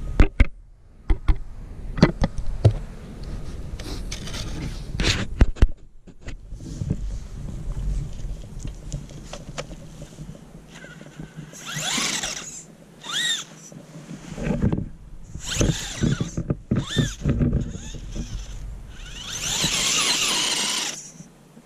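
Axial UTB18 Capra mini RC crawler's electric motor and drivetrain whining in short bursts of throttle, the pitch rising and falling with each burst as the tyres dig into deep snow. Sharp clicks and knocks in the first few seconds.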